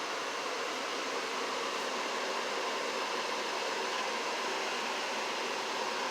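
Janitrol furnace running, a steady even rush of air with a faint hum.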